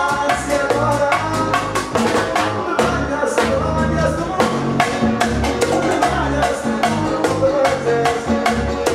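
Live band music played loud, driven by fast, steady percussion strikes over a pulsing bass line.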